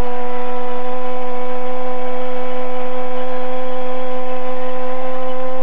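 A Spanish-language football commentator's long drawn-out "goool" goal call: one shout held on a steady pitch, lifting slightly near the end, over crowd noise.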